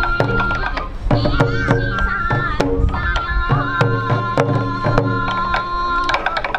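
Sansa odori folk music: a bamboo flute plays a held, stepping melody over steady, evenly spaced taiko drum strikes.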